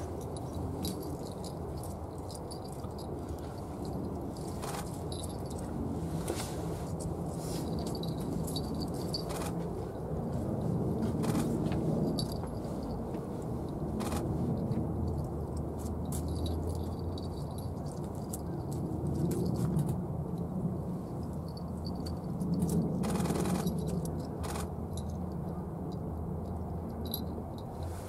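Steady low outdoor rumble that swells a few times, with scattered faint clicks and short high ticks over it.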